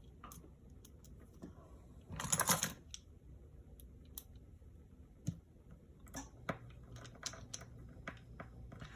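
Small scattered clicks and taps of a precision screwdriver and screws being driven in to hold a new LCD panel on a MacBook Air, with a brief denser run of clicking about two seconds in.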